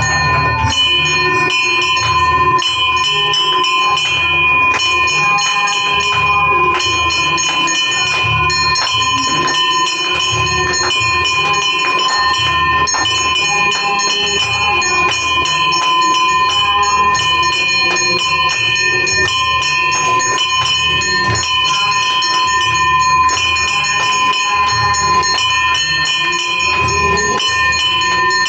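Aarti bells ringing without a break over a fast, steady rhythmic beat while lamps are waved before the Ganesha idol.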